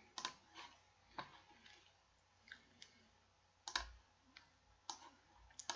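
Computer mouse clicks, sharp and scattered, about eight in all.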